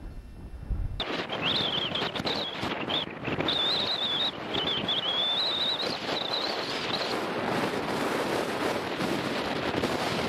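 Wind buffeting the camcorder's microphone on an exposed hilltop: a loud, crackly rush that starts suddenly about a second in, with a thin, wavering high whistle over it that fades out about seven seconds in.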